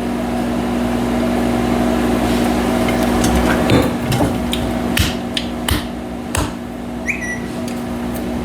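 A microwave oven running with a steady hum. From about three and a half seconds in, a series of sharp knocks and clicks, and a short electronic beep near the end.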